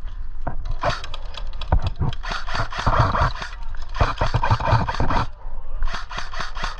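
Airsoft M4 rifle firing rapid shots in long strings, with a short break about five seconds in.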